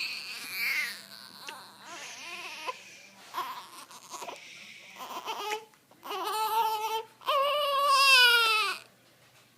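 Baby crying in a string of wails: fussy, broken cries in the first half, then two loud drawn-out wails near the end, the last the longest and loudest, falling in pitch before it stops.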